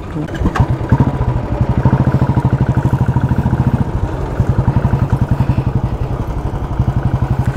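Motorcycle engine running with a steady, rapid thumping beat that gets louder within the first second.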